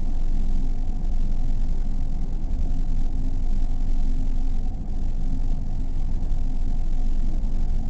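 Dark ambient music generated by a SampleRNN neural network: a dense, steady low rumble with faint sustained tones above it. There is a brief dip in loudness about five seconds in.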